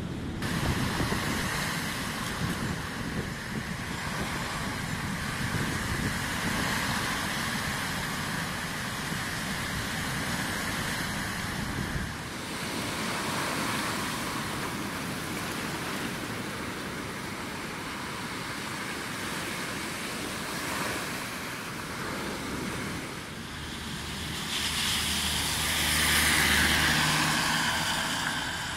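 Wind buffeting the microphone over floodwater and breaking surf. Near the end a car drives past on a waterlogged road, its engine hum and tyre hiss on the wet surface swelling to the loudest point and then fading.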